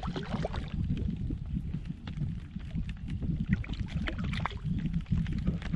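Wind rumbling on the microphone and water lapping against a kayak's hull, with scattered light knocks and clicks.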